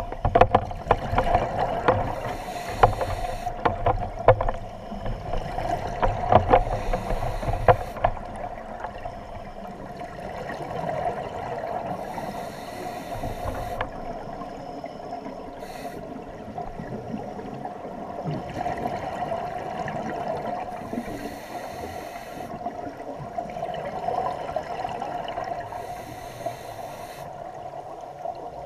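Scuba diver breathing through a regulator underwater, heard through the camera's waterproof housing: a hissing rush of breath and exhaled bubbles about every four to five seconds. Clicks and knocks from the camera being handled run through the first several seconds.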